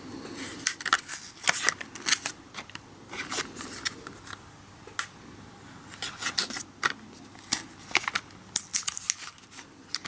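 Handling noise from a plastic package holding new RAM modules: a run of irregular sharp clicks and crackles.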